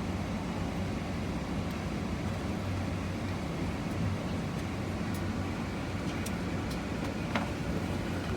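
Steady low rumble of a vehicle in motion, unchanging throughout, with a few faint clicks in the second half.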